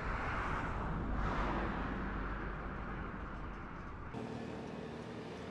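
Car driving, heard from inside the cabin: a steady rush of road and engine noise with a low rumble. About four seconds in it cuts off abruptly to a quieter, steady cabin hum.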